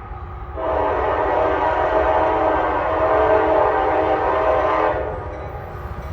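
Train horn sounding one long blast of about four seconds, a chord of several steady tones, over a steady low rumble.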